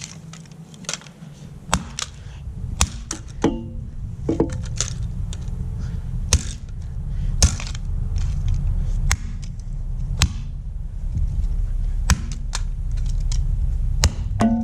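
A plastic alarm clock being smashed and broken apart: irregular sharp cracks and knocks, several a second at times, over a low steady rumble.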